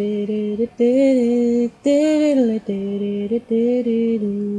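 A short tune of pitched notes with no speech: about six notes, several dipping down in pitch before settling, ending on a long held low note.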